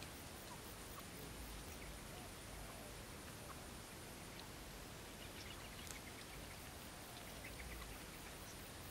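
Quail giving a few soft, short chirps in the second half, over faint steady background hiss.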